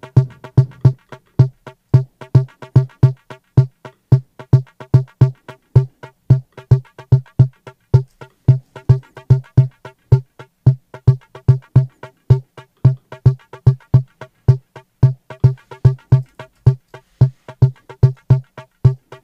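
A looped electronic rhythm of short, snappy pitched hits: the metronome click of an Arturia Drumbrute Impact analog drum machine, pitched down two octaves and played from a sampler through overdrive and delay. The hits repeat in a steady pattern, each with a low ringing tone.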